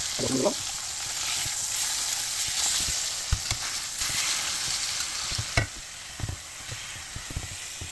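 Thick mahi-mahi fillets frying in oil in a non-stick pan: a steady sizzle, with a few knocks of a utensil against the pan as the fillets are turned over.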